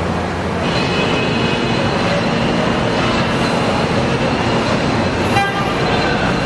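Car assembly-line factory noise: a loud, steady mechanical din. Thin high tones join about a second in, and there is a brief sharp beep near the end.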